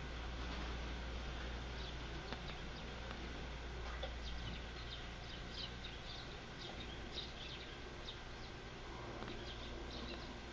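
Outdoor background of small birds chirping: scattered short high chirps throughout, over a low steady rumble.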